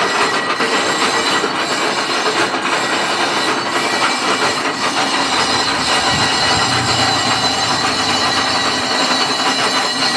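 A metalworking machine tool running and cutting: a continuous dense grinding, scraping noise with a steady high whine.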